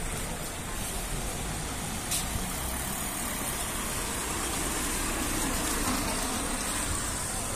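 Road traffic on a wet street: a steady wash of car engine and tyre noise on wet asphalt, swelling slightly about five to six seconds in.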